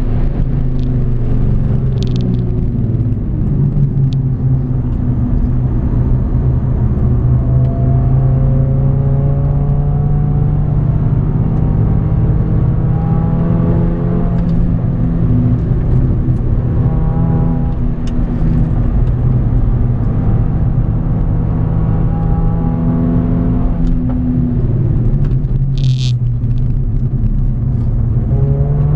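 Mercedes A45 AMG's turbocharged 2.0-litre four-cylinder heard from inside the cabin at track speed, its note repeatedly climbing as it pulls through the gears. A few short sharp cracks come through about two and four seconds in and again near the end.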